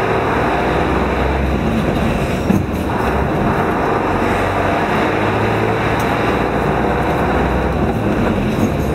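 Fire engine driving, heard from inside the cab: steady engine drone and road noise, with a single knock about two and a half seconds in.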